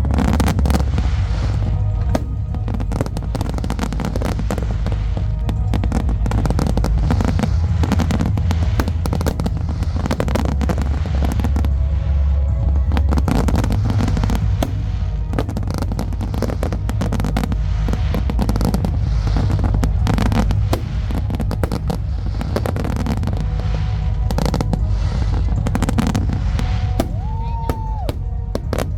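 Aerial fireworks shells bursting in a rapid, continuous barrage of booms and crackles, the finale of a fireworks display, with music playing through loudspeakers underneath.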